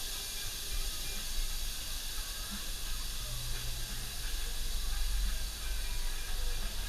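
Steady hissing noise, with a low rumble that grows stronger about five seconds in.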